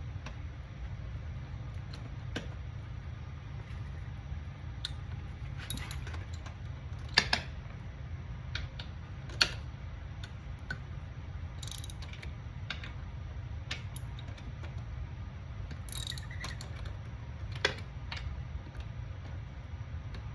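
Socket ratchet clicking in irregular short runs as the two bolts clamping the Ducati Streetfighter V2's eccentric rear hub are loosened, with a few sharp metal clinks, over a steady low hum.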